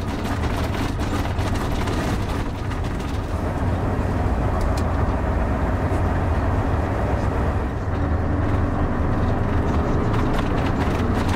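Cab interior of a bus driving on a rough gravel track: a steady low engine drone with road noise and constant rattles and knocks from the bumpy surface.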